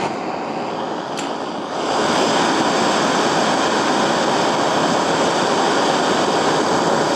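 Gas torch flame hissing steadily, growing louder about two seconds in; it is heating a screw held with Loctite threadlocker to soften and burn the threadlocker so the screw can be undone.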